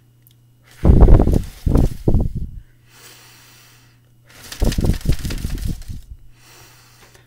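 A woman blowing long, deep breaths out through her mouth at a paper pinwheel, twice, as a slow deep-breathing exercise. Each exhale hits the microphone in several uneven gusts with a heavy low rumble.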